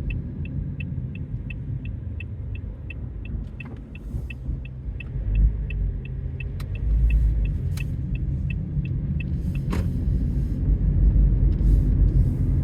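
Car's turn-signal indicator ticking evenly, about three ticks a second, over the low rumble of the car in motion, heard from inside the cabin. The ticking stops about nine seconds in, and a few single sharp clicks come in the second half.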